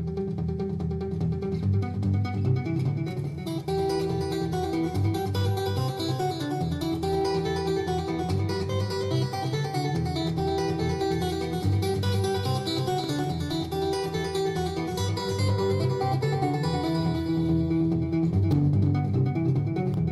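Acoustic guitar playing a trance tune, heard through an equalizer plugin while its presets are switched. The treble brightens about three and a half seconds in and dulls again near the end.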